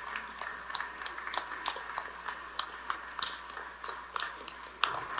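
Sparse, thinning applause from a few people, single hand claps landing a few times a second.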